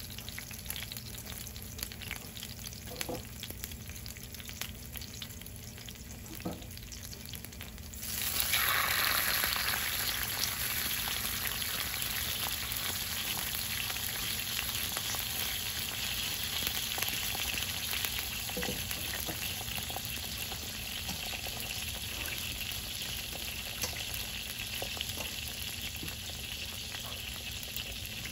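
Corn tortillas soaked in birria consommé frying in hot oil in a pan. A low sizzle with a few light clicks gives way, about eight seconds in, to a sudden loud burst of sizzling as more wet food goes into the pan. It then settles into steady frying.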